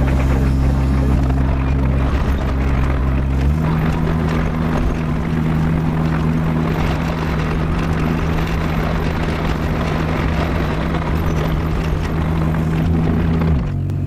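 A vehicle engine running steadily with a rushing noise over it. Its pitch steps up about three and a half seconds in and drops back shortly before the end.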